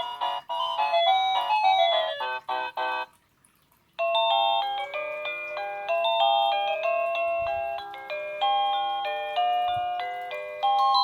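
Bestrix wireless doorbell's plug-in receiver playing its chime tunes: a quick run of notes stops about three seconds in, and after a second's pause a new, slower melody begins and carries on.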